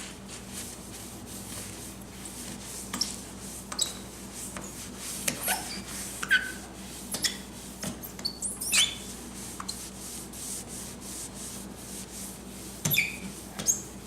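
Hand rubbing on a yellowed plastic headlight lens during the first step of a restoration kit, wiping off the yellowed surface. There are short high squeaks and light clicks now and then.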